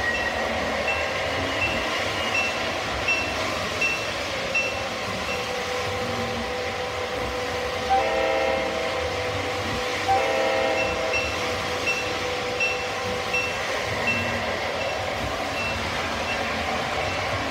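O scale model trains running, with a steady rumble of wheels and motors and a bell dinging about once every three-quarters of a second. About eight and ten seconds in, the sound system of the passing Conrail diesel locomotive model gives two multi-tone horn blasts, each a little over a second long.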